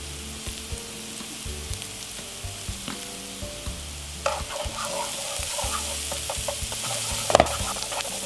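Chopped onion and garlic sizzling in hot oil in a nonstick frying pan, the sizzle getting louder and crackly about halfway through. Near the end, chopsticks stir the onions and click against the pan.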